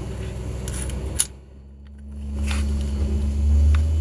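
Small metallic clicks from handling the parts of a reassembled deadbolt lock, with one sharp click about a second in, over a low steady hum.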